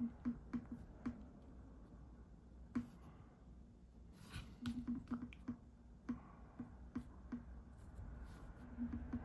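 Drawing tool tapping and stroking on paper: faint short ticks in quick clusters, a few louder taps, over a low steady room hum.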